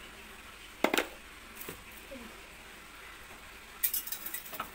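Steel ladle knocking and scraping against a pan of vegetables: a sharp clink about a second in, then a quick run of clicks near the end as the beans and carrots are stirred.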